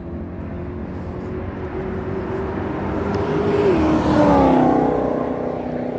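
Sports car passing at speed on a race track: its engine note grows louder as it approaches, peaks about four seconds in, and drops in pitch as it goes by.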